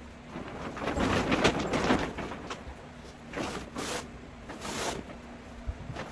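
Grow-tent parts being handled during assembly: irregular rustling and sliding swishes, three stronger ones, with a few light knocks and clicks.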